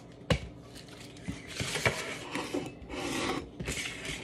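Opened plastic hot dog package crinkling and rustling in spells as it is handled, with one sharp knock about a third of a second in.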